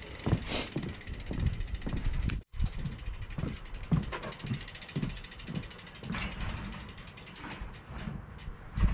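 Gravel bike's rear freehub ticking as the wheel turns without pedalling, over a run of low knocks and thumps.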